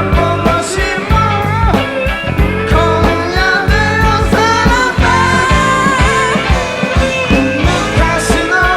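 Rock band playing live: bending electric guitar lines over bass and a steady drum beat.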